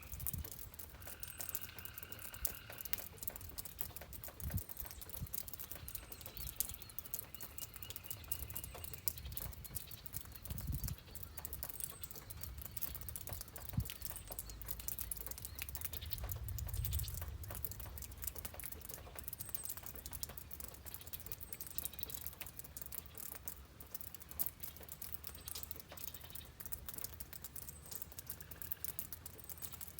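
Rain pattering in a steady stream of fine drops, with short bird calls now and then, most at the start and again several seconds in.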